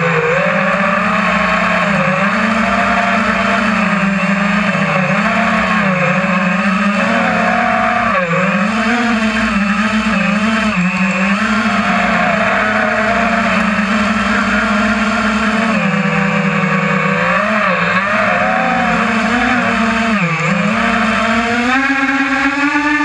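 Multirotor drone's electric motors and propellers whining steadily. The pitch dips briefly a few times and climbs near the end.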